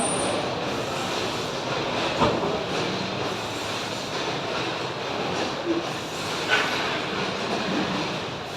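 Steady mechanical rumble of heavy machinery, with a couple of short metallic knocks.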